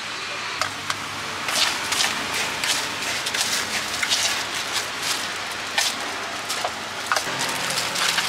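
Thin plastic crinkling and crackling with sharp clicks as a lid is pressed onto a small plastic sauce cup and a plastic bag is handled over cut fruit, over a steady background hum.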